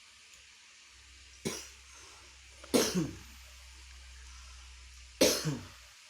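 A man coughing: one short cough about a second and a half in, then two harder bouts of coughing, each of two quick coughs close together, near the middle and near the end.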